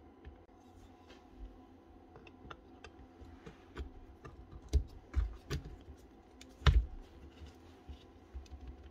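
Light clicks and a few louder knocks of drill gearbox parts being handled and fitted together during greasing and reassembly of a Dewalt SDS drill, with the loudest knock about two-thirds of the way through, over a faint steady hum.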